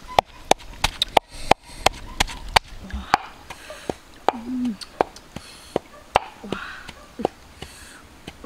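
Wooden pestle pounding red chillies and coarse salt in a mortar: sharp knocks about three a second, slowing to about two a second later on.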